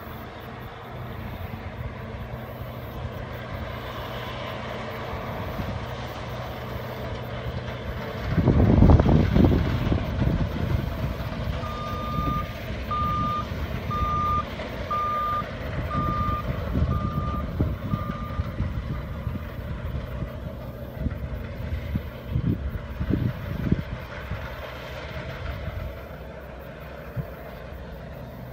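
New Holland combine harvester running at a distance with a steady engine hum while cutting wheat, and a loud low rumble about eight seconds in. A reversing alarm then beeps seven times, about once a second.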